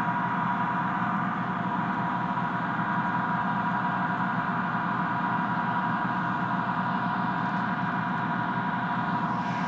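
Several M1A1 Abrams tanks idling together, their AGT1500 gas-turbine engines giving a steady whine of several fixed tones over a low rumble.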